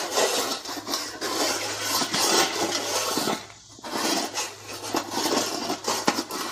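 Metal dog bowl full of kibble scraping and rattling on the floor as a dog paws at it: a continuous rasping that pauses briefly about three and a half seconds in.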